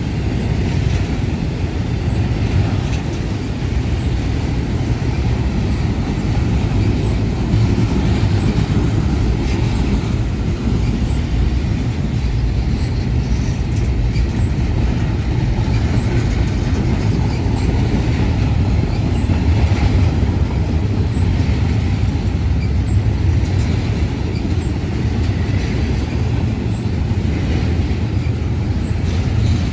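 Union Pacific intermodal freight train rolling past: a steady, loud rumble of steel wheels on rail that runs on unbroken.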